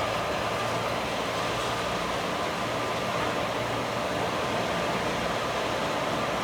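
Indian Railways train with ICF passenger coaches running, heard from a window seat in the coach: a steady, even rumble and hiss.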